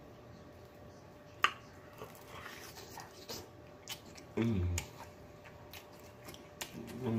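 Close-up eating of a battered fried chicken leg: sharp bites and mouth smacks and clicks, with a short low "mmm" moan about four and a half seconds in and another near the end.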